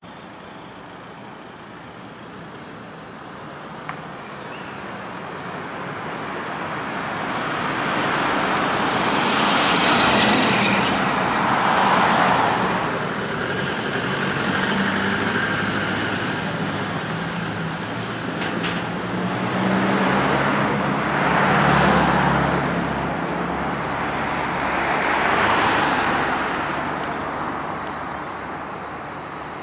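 Road traffic: several vehicles passing one after another, their tyre and engine noise swelling and fading. The noise builds over the first ten seconds or so.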